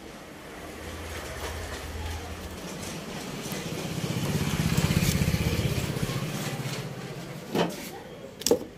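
A passing motor vehicle engine, with a low rapid pulse, grows louder to a peak about halfway and then fades away. Two sharp knocks come near the end.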